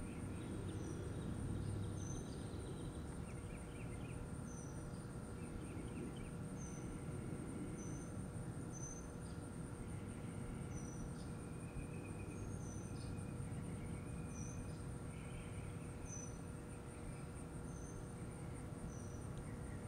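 Outdoor backyard ambience: a steady high insect drone, like crickets, with short high chirps every second or so and a low background rumble.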